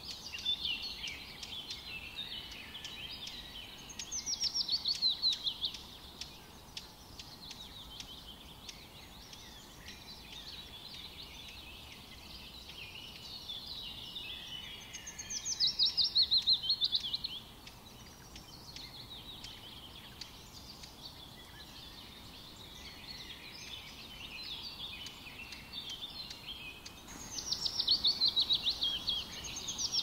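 Birds chirping and calling throughout. Three times, about 4 s in, midway, and near the end, a louder, rapid series of notes runs down in pitch.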